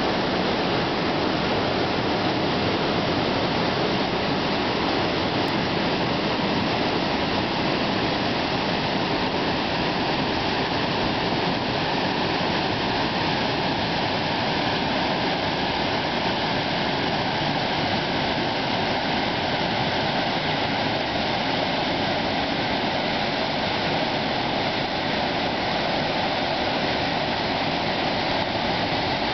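Weeks Falls on the South Fork Snoqualmie River: white water pouring down a rock chute into a pool, a steady, unbroken rushing.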